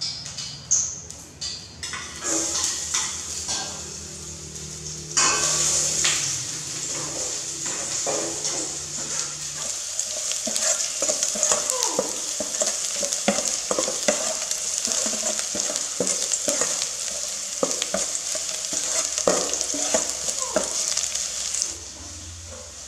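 Minced garlic frying and sizzling in hot oil in a stainless steel pot, with a metal ladle stirring and scraping against the pot. The sizzle starts suddenly about five seconds in, after a few clinks, and dies down near the end.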